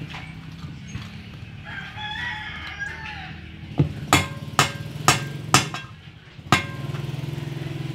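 A metal spoon strikes a stainless steel bowl six times over about three seconds, ringing with each strike as scraped young coconut meat is knocked off it. Before the strikes a rooster crows once in the background, and near the end a steady low engine hum starts.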